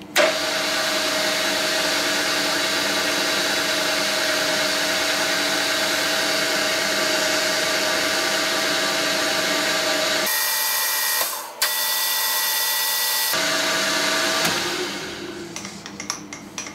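Milling machine spindle running steadily, power-tapping 3 mm threads into an aluminium plate with a spiral-flute tap. The sound changes for a few seconds about ten seconds in, then fades away near the end.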